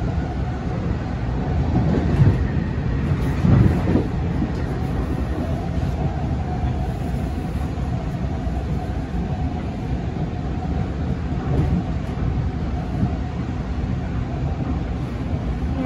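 Running noise of a Long Island Rail Road M9 electric railcar at speed, heard from inside the car: a steady rumble of wheels on rail. It swells a little about two seconds in and again around four seconds in.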